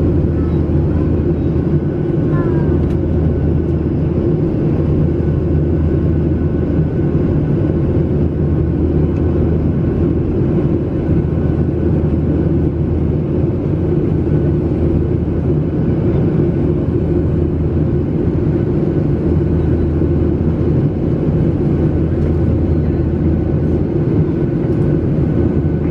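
Boeing 737 jet engines running steadily during the climb after take-off, heard from inside the passenger cabin as an even, loud noise heaviest in the low end.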